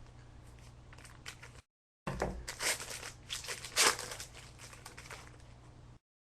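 A trading card pack wrapper crinkling and tearing as it is opened, with cards rustling, in a run of short crackles. The sound drops out briefly about a second and a half in and cuts off to dead silence near the end.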